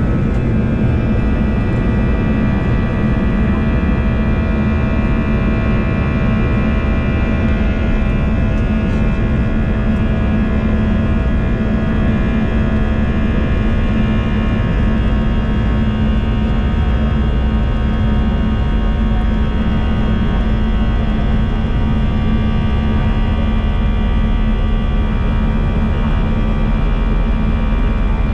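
Airliner's turbofan engines heard from the cabin over the wing while taxiing: a steady low rumble with a cluster of steady whining tones.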